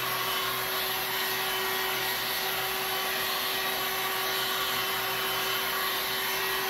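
Handheld electric heat gun running steadily, a constant motor hum under the rush of its air flow, as it is swept over a wet epoxy resin coat to warm it.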